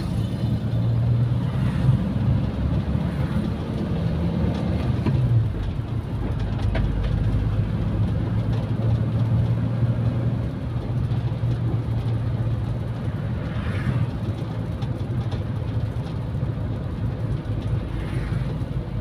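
Car with a carburetted K3 engine cruising steadily on a flat road, heard from inside the cabin: a steady low drone of engine and road noise at about 55–60 km/h, near 2250 rpm.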